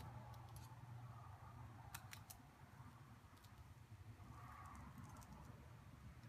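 Near silence: a steady low hum with a few faint clicks, three of them close together about two seconds in.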